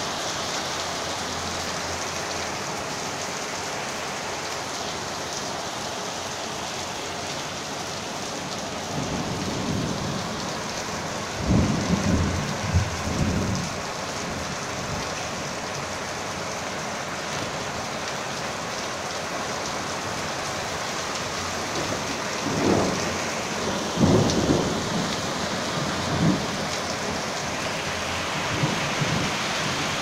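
Heavy rain pouring steadily, with two spells of low rumbling, about ten and twenty-two seconds in, that rise above the rain for a few seconds each.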